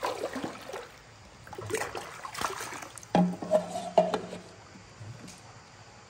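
Water splashing and sloshing in a shallow stream as hands work in it, in three short spells. During the third spell, about three seconds in, a short steady low tone sounds for over a second.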